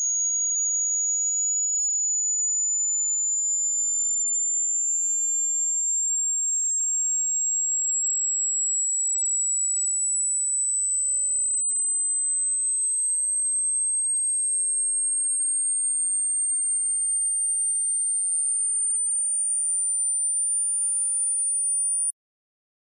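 A single pure, very high electronic tone that glides slowly and steadily upward in pitch, then cuts off abruptly near the end.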